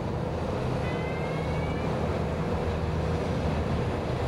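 Low, steady drone of a ship's engines over water wash. A faint high whistle rises briefly about a second in.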